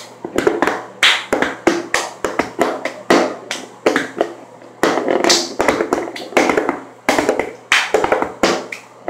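A hand-made beat: a quick, steady rhythm of claps and taps, with a plastic tub being struck and knocked on the countertop.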